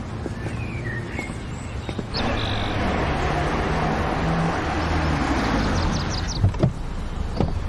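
A few bird chirps. About two seconds in, a car's engine and tyre noise comes in suddenly and holds steady, then drops away near the end, followed by a few sharp clicks.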